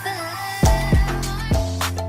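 Background R&B music with a beat, a short sung line near the start and drum hits about half a second apart.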